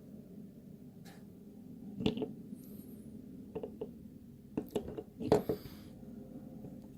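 Handling clicks of a Victorinox Swiss Champ Swiss Army knife as its fold-out tools are closed and opened: a few short sharp clicks, the loudest about five seconds in.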